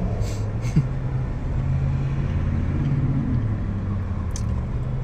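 Car engine running, a steady low hum inside the cabin, with a few faint clicks near the start and again near the end.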